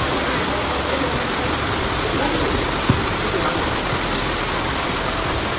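A steady rushing hiss, with a basketball bouncing once on the concrete court about three seconds in.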